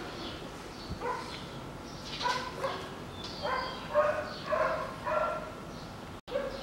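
A dog barking in a series of short yips, several in a row, over faint background hiss.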